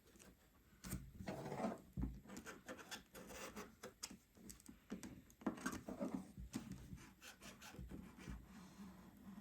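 Small flathead screwdriver scraping and rubbing along new screen adhesive tape on an iPhone frame, pressing the tape down, with a few light knocks. The strokes are faint and irregular.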